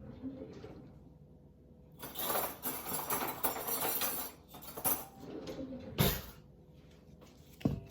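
A whisk mashing avocados in a bowl: rapid squishing and clinking against the bowl start about two seconds in. Several separate sharper knocks follow, the loudest about six seconds in.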